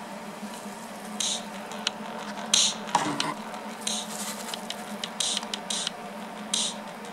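Speakers muted by the headphone stand's switch, leaving a low room hum. Over it come faint, tinny, irregular ticks and hisses, typical of music leaking from the lifted headphones.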